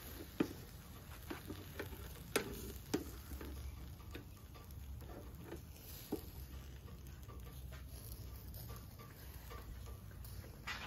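Kebabs grilling over a charcoal fire: irregular crackles and pops as marinade and fat drip onto the hot coals, most frequent in the first three seconds and sparser after, over a steady low rumble.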